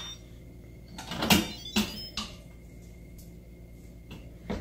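Instant Pot pressure-cooker lid being twisted loose and lifted off, the pressure already released: a short scraping clatter about a second in, then a few sharp plastic-and-metal clicks and knocks.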